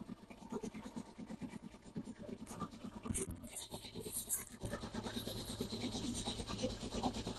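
A motor boat's engine runs steadily under way, in a quick, even chug, and a thin high whine joins in about halfway through.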